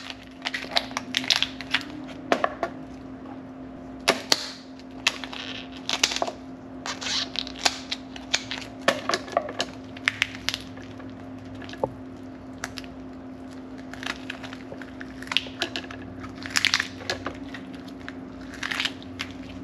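Kitchen scissors snipping through the shell of a cooked spiny lobster tail, and the shell cracking as it is pried apart by hand: a run of irregular sharp cracks and snips. A steady low hum runs underneath.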